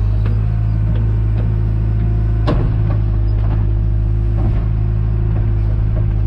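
John Deere 310G backhoe's diesel engine running steadily while digging, with a few sharp metallic knocks from the digging gear, the loudest about two and a half seconds in.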